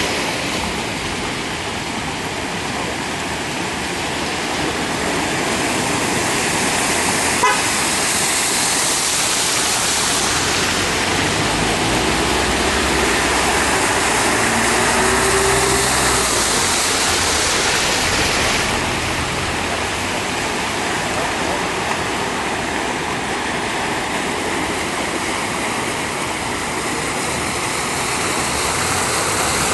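Cars driving through deep floodwater on a street: a steady rush of water and spray thrown up by the tyres, with car engines running under it. A short sharp click sounds about seven seconds in.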